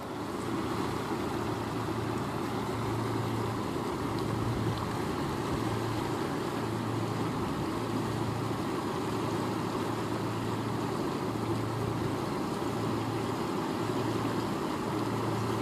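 Steady rushing of a fast-flowing river, with a low hum underneath that swells and fades slowly.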